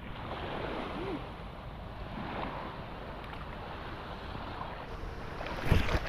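Shallow sea water washing gently at the shoreline, with wind rushing over the microphone as a steady hiss. A brief loud rumble near the end.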